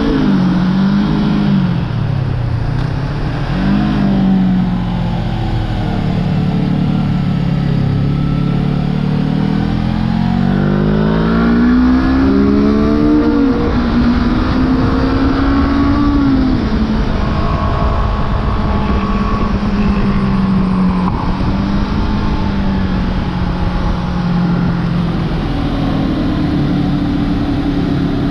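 Honda CB500F's 471 cc parallel-twin engine heard onboard at track speed, its pitch rising and falling with the throttle over a steady rushing noise. About halfway through it climbs for several seconds and then drops sharply, and later it holds at a fairly steady pitch.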